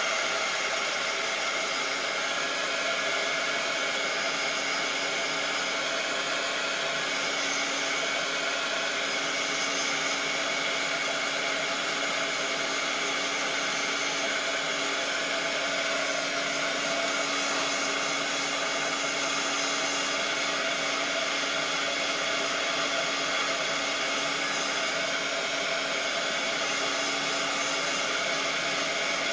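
Handheld craft heat tool (embossing heat gun) running steadily with a constant fan hum, blowing hot air to dry Mod Podge on a decoupaged napkin.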